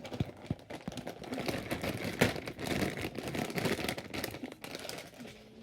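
A bag rustling and crinkling as squishy toys are packed into it: a dense run of small rustles and clicks, busiest in the middle and dying down near the end.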